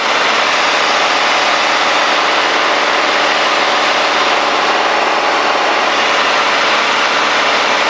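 Cessna 210D's six-cylinder Continental IO-520 engine and propeller droning steadily at cruise power, mixed with airflow noise, heard inside the cabin.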